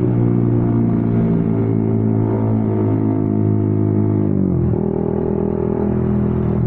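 Honda CB150R's single-cylinder engine running through a WRX Trioval K2 aftermarket exhaust while riding, a steady bassy note. About four and a half seconds in the revs drop quickly, then the engine settles into a steady lower note.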